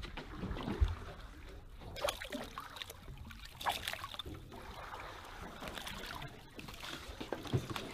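Water splashing and dripping as a landing net scoops a hooked snapper out of the sea beside a boat, with a sharp knock about a second in.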